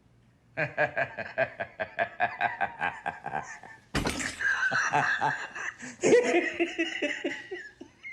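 Laughter: a rapid, rhythmic run of laughs starts about half a second in, then breaks into louder, fuller laughter from about four seconds in.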